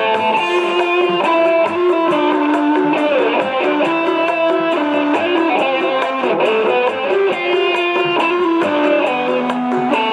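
Loud instrumental dance music played through large PA speaker stacks: a melody of held notes over a steady beat, with quick, even high ticks keeping time.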